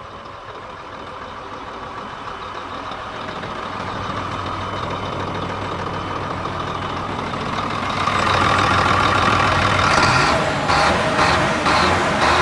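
Sinotruk Howo tractor truck's diesel engine running, growing steadily louder, with a high steady whine. It jumps in level about eight seconds in, and a series of short rapid pulses comes near the end.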